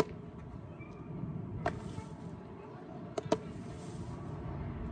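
A baseball snapping into a leather fielding glove right at the start, then a few sharp knocks: one about a second and a half in and two in quick succession a little past three seconds, over steady outdoor background noise.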